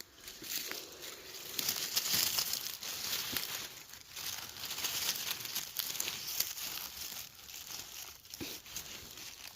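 Dense rustling and crinkling of dry forest-floor litter being disturbed, full of small crackles that come and go in waves, loudest about two seconds in and again around five to six seconds.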